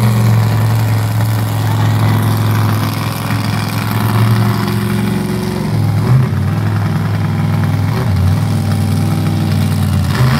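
Monster truck engine running loud and steady while the truck rears up on its back wheels, with changes in pitch about six and eight seconds in.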